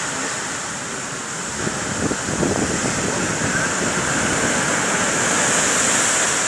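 Storm surf on the Black Sea breaking against the shore in a steady rush of noise that swells towards the end.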